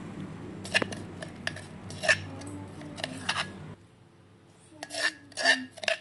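Wooden pestle and a metal spoon knocking and scraping in a clay mortar full of pounded dried chillies and garlic. The short knocks and scrapes come irregularly, pause for about a second past the middle, then come three more times near the end.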